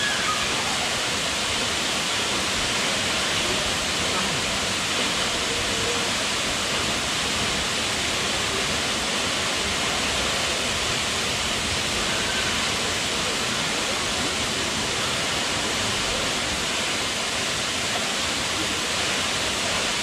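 A tall waterfall falling into a plunge pool: a steady, even rush of water, with faint voices now and then underneath.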